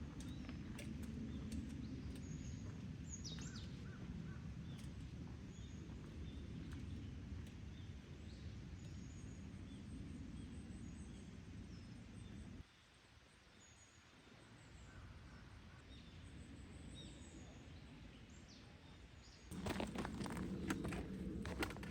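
Outdoor forest ambience: small birds chirping now and then over a steady low rumble, which drops away for a quieter stretch about halfway through. Near the end, footsteps start up again.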